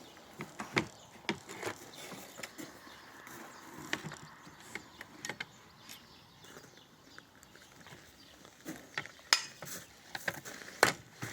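Irregular clicks, taps and knocks of a saw and a piece of wood being handled and set up for a cut, with light mechanical clicking.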